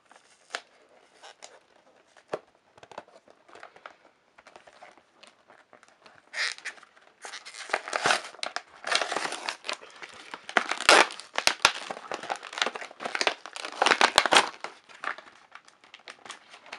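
A toy multipack's packaging being torn open and crinkled by hand. Scattered light clicks at first, then dense crinkling and tearing from about six seconds in, with several sharp snaps, thinning out near the end.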